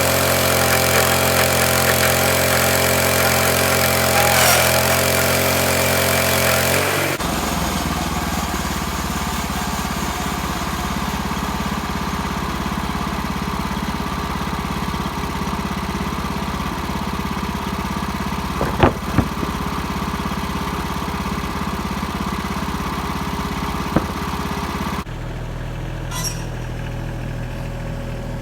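An engine running steadily. Its sound changes abruptly about seven seconds in and again near the end, and there are a few sharp knocks about two-thirds of the way through.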